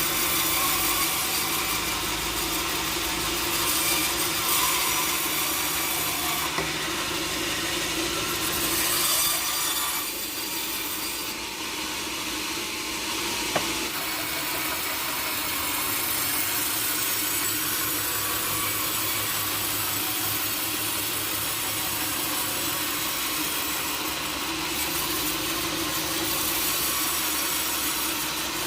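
Sawmill saw running and cutting through teak wood: a steady machine hum under the rasp of the blade in the wood, easing off briefly about a third of the way in, with a single sharp click shortly after.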